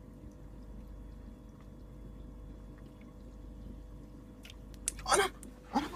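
Low, steady background hum in a quiet room, broken about five seconds in by two short, loud sounds.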